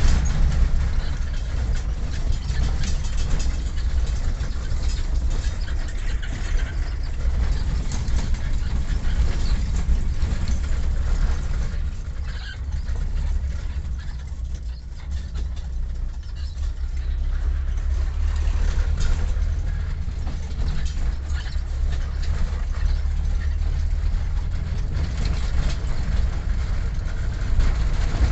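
Vehicle on the move: a steady low rumble of engine, tyres and wind, easing off somewhat around the middle.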